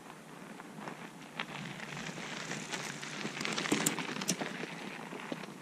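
The knobby 29+ tyres of a loaded Trek 1120 rolling over gravel and dirt, a crackling crunch with many small clicks of stones. It grows louder as the bike nears, peaks as it passes close by about four seconds in, then fades.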